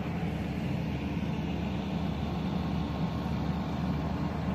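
Moored ship's onboard machinery running: a steady low drone with an even hum and no change in pitch or level.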